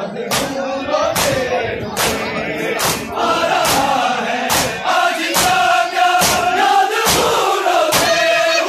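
Crowd of men chanting together in unison, with sharp rhythmic slaps about once a second: mourners beating their chests (matam) in time with the chant.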